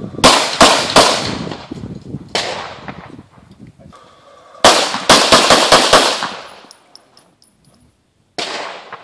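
Handgun shots: three quick shots, a single shot, then a fast string of about six shots, and one more shot near the end, each with a short echoing tail.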